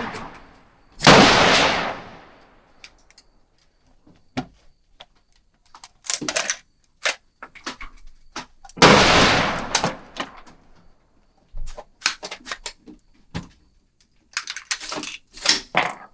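Two rifle shots about eight seconds apart, each ringing out and fading over a second or so, with scattered metallic clicks and rattles of the rifle being worked between and after them. The 7.62x39 AR-15 is not feeding right.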